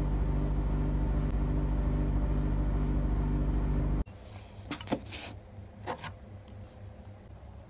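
A loud, steady low hum with a stack of overtones, which cuts off abruptly about four seconds in. After it come a few light clicks and knocks of objects being handled on a tabletop.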